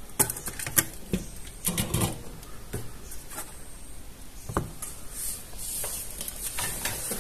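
Handling noise of a router's circuit board and plastic case: scattered light clicks and knocks as the board is lifted out and set down on a workbench, with one firmer knock about halfway through.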